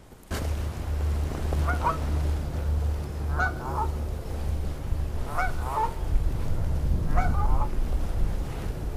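Canada geese honking in short runs of several calls, about every two seconds, over a steady low rumble of strong wind on the microphone.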